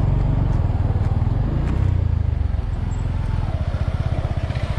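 Off-road vehicle engine running, low and heavy, with its firing pulses becoming distinct and even about halfway through as it settles to lower revs.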